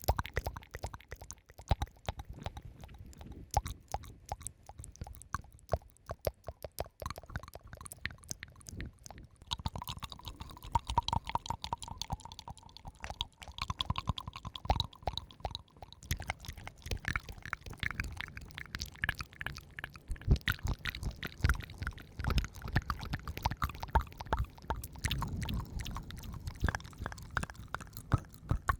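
Harmonica played very softly and breathily close to the microphone, with dense, crackly wet clicks throughout. A faint held note comes in about ten seconds in and fades around sixteen seconds, followed by fainter, higher notes.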